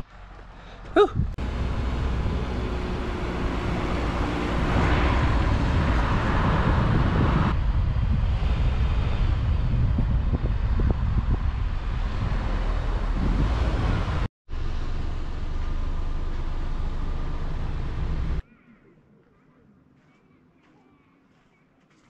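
Car driving along a road: steady road and wind noise with a heavy low rumble, broken by two abrupt cuts. About 18 seconds in it stops suddenly, giving way to faint, quiet background.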